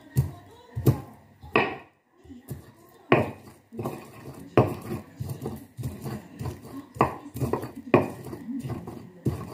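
Stone pestle pounding and grinding shallots and garlic in a stone mortar (Indonesian cobek and ulekan), making a coarse spice paste. Sharp knocks come at an uneven pace, roughly one every second, with softer grinding knocks between them.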